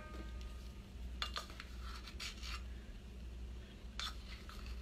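Faint scrapes and light clicks of a measuring spoon scooping and levelling baking powder in its can, a few short ones at a time, over a low steady hum.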